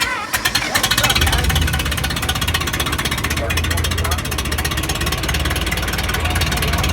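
John Deere 3020 tractor engine running just after being started, loud, with rapid even firing; it builds up over the first second, then holds steady.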